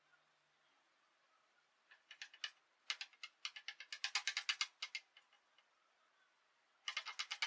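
Skeleton marionette's feet and limbs clattering on the stage floor as it dances: sharp, fast tapping that comes in uneven bursts from about two seconds in, stops briefly, then returns near the end as a quick even run of about eight taps a second.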